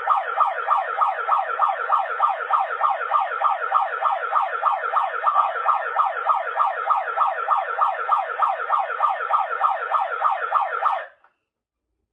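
Handheld megaphone's built-in siren sounding a fast, loud warble, its pitch rising and falling several times a second with a thin, narrow speaker tone. It cuts off abruptly near the end.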